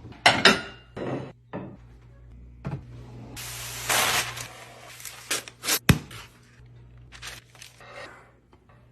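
Containers and packaging being handled while a fridge is restocked: a series of sharp knocks and clicks, with a longer rustling stretch in the middle.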